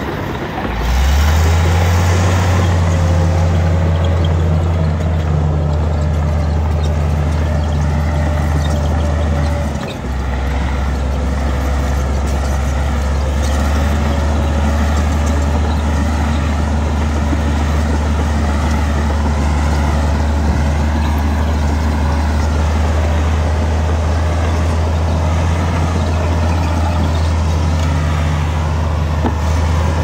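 Heavy diesel engine of earthmoving equipment running hard, a loud deep drone; it revs up about a second in and breaks off abruptly and resumes about ten seconds in.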